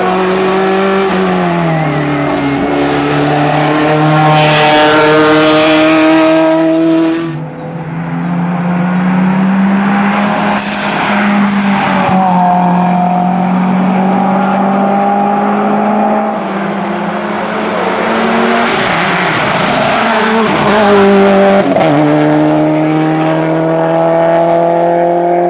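Hill-climb race cars at full throttle, engines held at high revs with several drops in pitch at gear changes. The sound changes abruptly twice, about a third of the way in and near the end, as it moves from one car to another.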